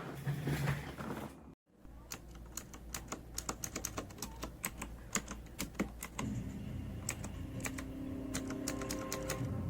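Typing on a Corsair K70 RGB Pro mechanical keyboard with Cherry MX Red linear switches: a fast, uneven run of key clicks. A short dropout comes just before the typing starts.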